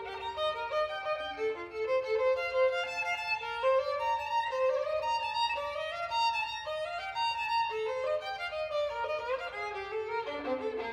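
Solo violin, bowed, playing a fast passage of short notes that step quickly up and down in pitch without a break.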